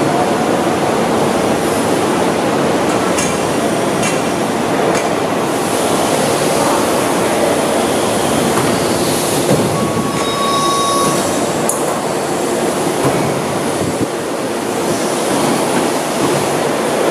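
Twin-head symmetrical hydraulic tube bender working through a bend cycle: a steady, loud mechanical noise, with a few sharp clicks in the first five seconds and another a little past the middle, and a brief high whine just before that.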